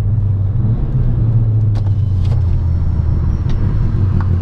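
Skoda Yeti's turbocharged 1.8 petrol four-cylinder, stage 1 tuned, heard from inside the cabin while driving: a steady low engine drone with road noise, and a few light clicks.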